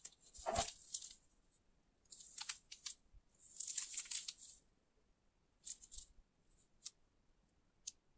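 Plastic wrapper of a Kinder Maxi chocolate bar crinkling and rustling in gloved hands as the bar is picked up and turned over, in several short bursts with quiet gaps between. A soft knock about half a second in, as the bar is lifted from the table.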